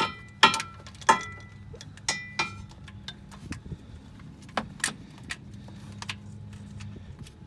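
Hand tools clinking: a steel socket, extension and ratchet knocking and clicking against metal as they are worked onto a starter mounting bolt. A quick run of sharp clinks comes first, then scattered clicks over a low steady hum.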